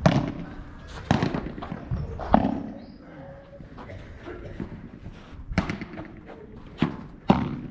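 A padel ball being hit back and forth in a rally: sharp pops of ball on racket and court, about six in all, the loudest at the start. There is a lull in the middle and a quick cluster near the end.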